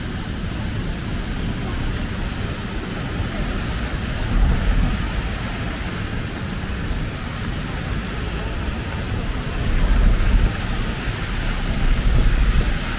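Rainy city street ambience: a steady hiss of rain and car tyres on wet pavement, with passing traffic. Low rumbles swell up three times, about four, ten and twelve seconds in.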